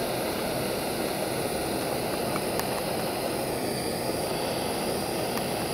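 MAP-gas hand torch on a Bernzomatic cylinder, its flame burning with a steady hiss as it preheats aluminum for brazing.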